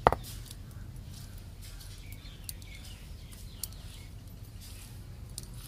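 A single sharp knock of stone on stone near the start, the stone roller meeting the flat grinding slab (sil-batta), then faint scrapes and ticks of fingers gathering freshly ground masala paste off the stone, with a few faint bird chirps.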